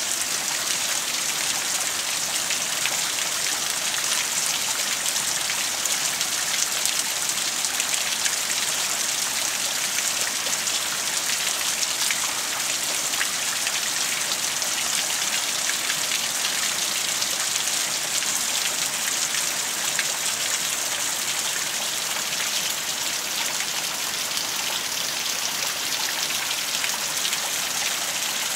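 Rain falling steadily: an even hiss with scattered ticks of single drops.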